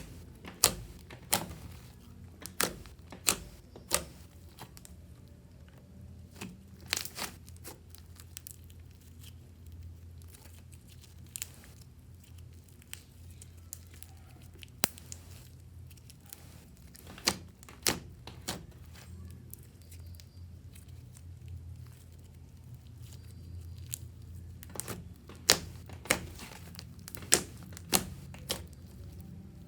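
Fluffy slime being squeezed and kneaded inside a plastic bag: clusters of sharp pops and clicks with crinkling of the bag, over a steady low hum.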